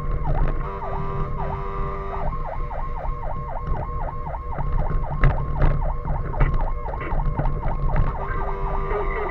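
Fire engine siren on a fast yelp, sweeping down and up about three to four times a second after a slower first couple of seconds, over the low rumble of the truck's engine, with a few sharp knocks in the middle.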